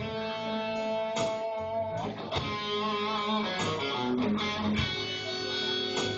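Band music led by electric guitar: a guitar fill of held, ringing notes with fresh plucks about every second, over the backing, between sung lines of the song.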